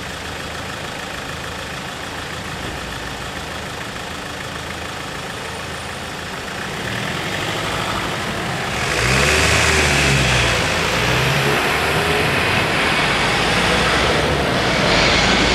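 Road traffic: engines idling, then cars and a van pulling away and driving past close by. It grows much louder between about seven and nine seconds in, with engines revving as they accelerate.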